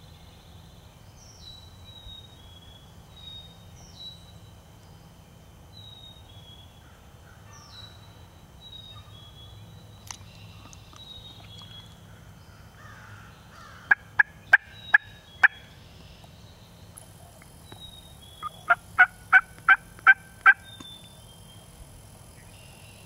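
Wild turkey yelping in two runs of sharp, loud yelps, about five and then, a few seconds later, about seven, taken for a hen. A small bird sings faint, high, short notes over and over throughout.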